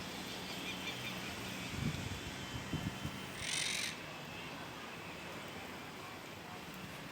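One short, hoarse, hissing call about three and a half seconds in, the kind of screech a bird such as an owl gives, over a steady faint outdoor hiss with a couple of dull low thumps before it.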